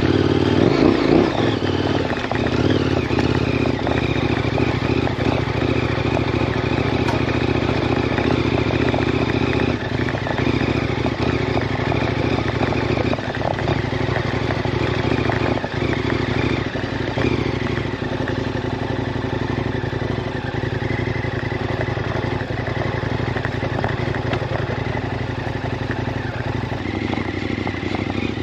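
The 2018 KTM 1090 Adventure R's 1,050 cc LC8 V-twin engine running steadily as the bike is ridden, with a few brief knocks between about ten and sixteen seconds in.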